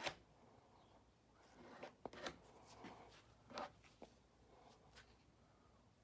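Faint, short scrapes of a palette knife spreading Bondo body filler into a gap in wood veneer, a few seconds apart.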